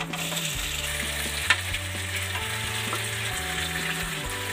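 Halved boiled bhakosa dumplings dropped into hot ghee in a kadhai, sizzling and frying as a wooden spatula stirs them. There is a single sharp knock about a second and a half in.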